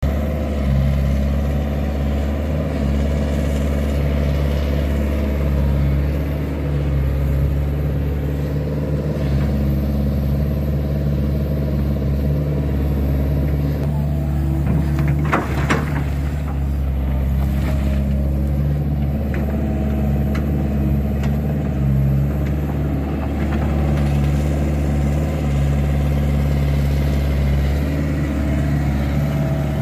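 2012 JCB JS130 tracked excavator's diesel engine running steadily as it digs and moves, with a brief clatter from the bucket in the soil about halfway through.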